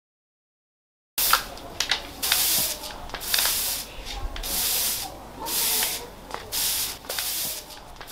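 Silence for about a second, then a broom sweeping a brick-tiled floor in repeated scratchy strokes, about one a second.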